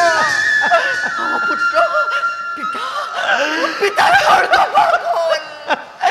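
Audience laughing and chuckling, many voices overlapping. A steady high tone holds under the laughter through the first half, stepping slightly lower about a second in.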